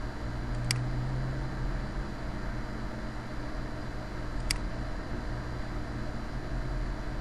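Steady low hum and hiss of background noise, with two sharp computer-mouse clicks, one just under a second in and one about four and a half seconds in.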